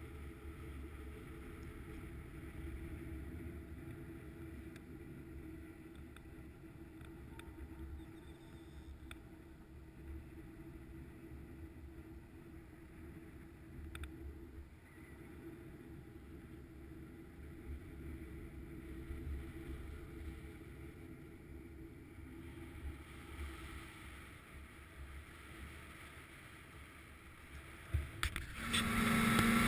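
Snowmobile engine running at a steady cruise, a faint, even drone, mostly low rumble. Near the end it suddenly becomes much louder.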